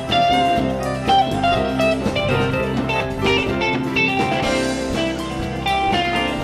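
Live band playing an instrumental passage, with a guitar taking the lead over bass, keyboard and drums.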